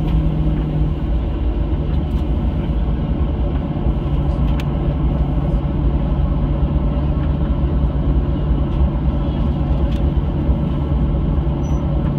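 Cabin noise of a Boeing 737-800 on the ground, its CFM56-7B turbofan engines running steadily at low power, a constant rumble with a steady low hum and a higher steady tone.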